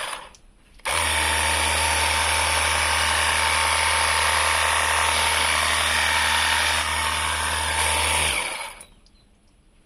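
Portable pressure washer motor and pump running with a steady whine and hum. It cuts out just after the start and starts again within a second, then winds down and stops about eight seconds in.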